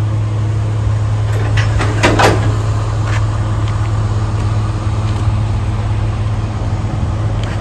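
Diesel truck engine idling with a steady low drone, with a short falling squeak about two seconds in.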